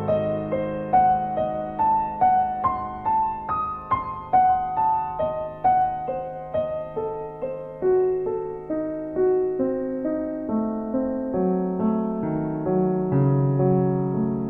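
Solo piano playing a slow, gentle melody of single notes, roughly one or two a second, over held low bass notes. In the second half the melody moves lower and the notes ring on longer.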